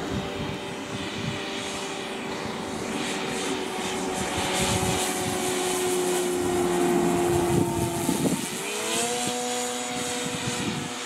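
Quarter-scale RC Piper Cub's electric outrunner motor and 20x6 propeller in flight: a steady humming whine whose pitch sags slightly as the plane passes. About eight seconds in, the pitch rises sharply and settles higher, as the throttle is opened.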